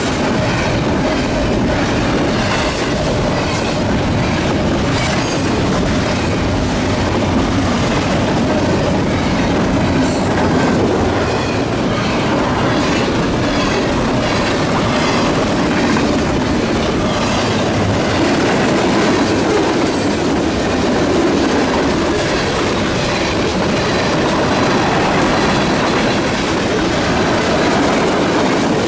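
CSX intermodal freight train passing at close range: a steady rolling rumble of the cars with the wheels clicking over rail joints. Brief high-pitched squeaks come about ten seconds in and again near twenty seconds.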